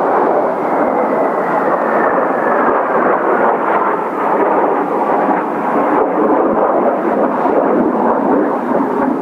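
Kawasaki T-4 jet trainers' turbofan engines running as the jets pass, a heavy, steady roar with a faint whine that drops slowly in pitch over the first few seconds.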